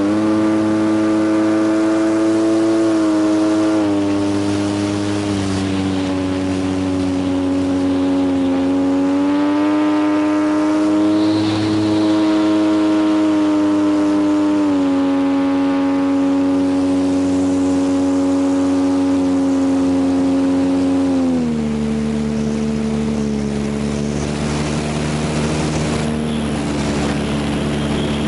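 Electric motor and propeller of an FMS T-28 Trojan RC plane in flight, heard from on board: a steady whine whose pitch steps up and down with the throttle. About three-quarters of the way through, the throttle is pulled back and the whine drops to a lower note.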